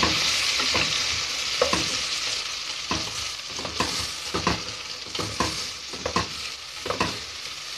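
Chopped red onions sizzling as they fry in butter and oil in a metal pot, easing slightly in level. A wooden spoon stirring them scrapes and knocks against the pot about once a second.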